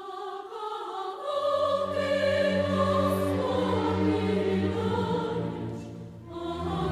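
Solemn choral music: voices hold long sustained chords, with low notes joining a little over a second in and a brief swell and fall near the end.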